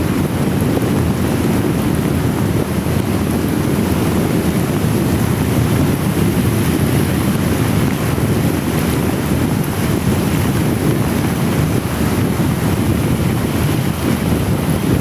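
Wind buffeting the microphone of a motorcycle riding in very heavy rain, a steady low rushing noise with the hiss of rain over it.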